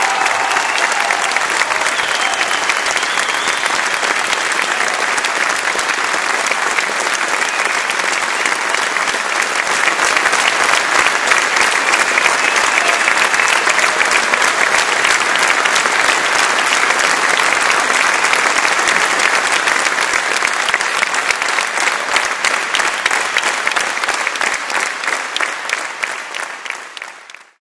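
Large audience applauding in a concert hall, growing louder about ten seconds in, then fading out near the end.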